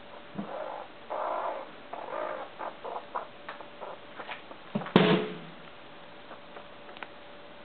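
Baby squirrels squeaking and chittering in short bouts while being handled, with a sudden loud knock about five seconds in.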